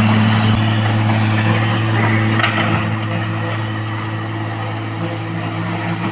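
Heavy diesel machinery engine running steadily at a constant pitch, with a rushing noise that eases off about halfway through and a brief knock shortly before that.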